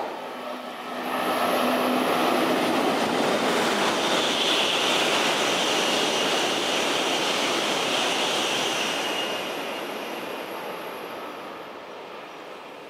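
Tohoku Shinkansen bullet train running through the station at speed: a rush of wheel and air noise that swells about a second in and holds with a high hiss for several seconds, then fades as the train recedes.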